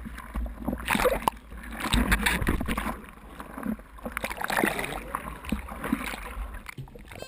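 Seawater splashing and sloshing around a board-mounted action camera as a surfer paddles a surfboard through whitewater, coming in repeated surges, with a low rumble on the microphone that eases about halfway through.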